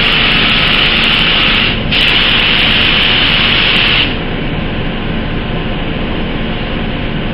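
Gravity-feed air spray gun hissing as it sprays thinners in a test pass, with a very short break just before two seconds in. The spray cuts off about four seconds in, leaving a quieter, steady background noise.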